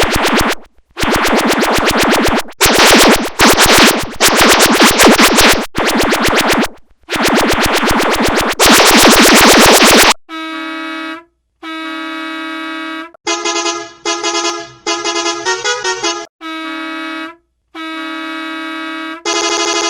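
Bus air horn sound effect played in a run of edited variations. First comes a string of loud, distorted, buzzy blasts of one to two seconds each, then cleaner, quieter pitched horn tones in short separate blasts, a few of them stepping up and down in pitch like a little tune.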